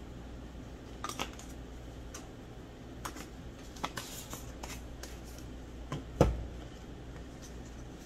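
Plastic spice jars handled over a glass mixing bowl: shaken, picked up and put down, giving scattered light clicks and taps, with one louder knock about six seconds in.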